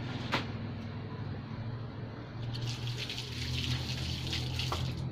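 Live rice-field eels and a few small fish thrashing in a plastic basin of water: wet splashing and crackling that grows dense about two and a half seconds in, over a steady low hum. A single sharp click comes just after the start.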